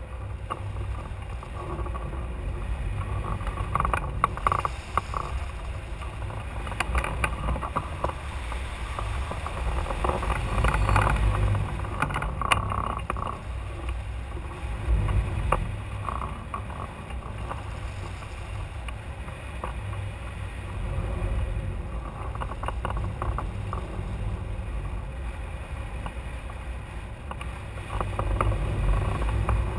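Wind rushing over the microphone of a camera mounted on a hang glider in flight: a steady low rumble that swells and eases in gusts, with a few sharp clicks.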